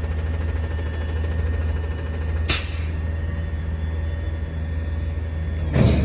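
Rear-load garbage truck's diesel engine idling with a steady low drone, broken by a short hiss about two and a half seconds in and a louder short burst near the end.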